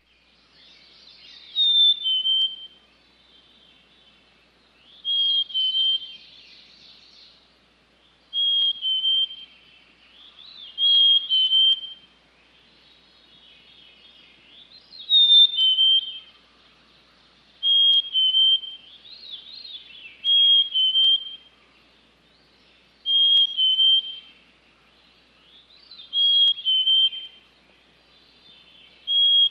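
A songbird singing a clear, whistled two-note song, a higher note dropping to a lower one, repeated about every three seconds, with softer chirps between the phrases.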